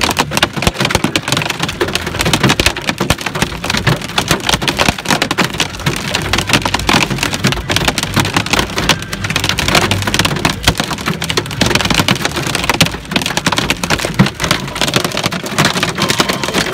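Hailstones about an inch across pelting a car's roof and windshield, heard from inside the cabin: a loud, dense, unbroken clatter of hits.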